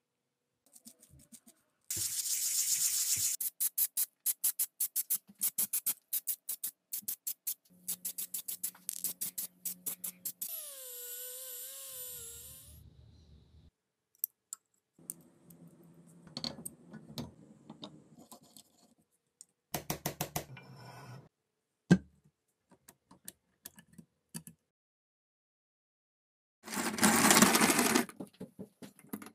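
A string of short clicks, rattles and knocks from the metal parts of an antique Dandy crank pencil sharpener being handled and assembled, including a long run of rapid clicking. Near the end comes a brief loud grinding as the restored sharpener is cranked on a pencil.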